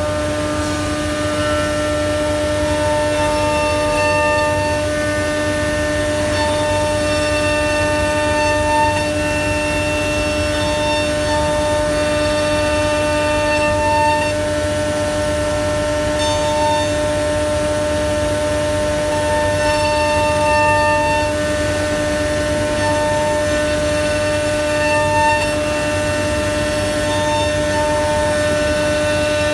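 Holztek CNC door hinge-boring and lock-mortising machine's router spindle cutting into the edge of a wooden door leaf: a steady whine of several held tones, with a higher tone coming and going as the cutter works.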